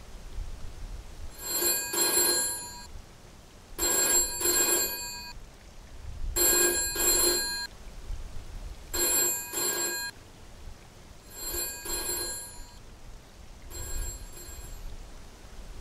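Telephone bell ringing in a double-ring pattern, six rings about two and a half seconds apart, the last one fainter.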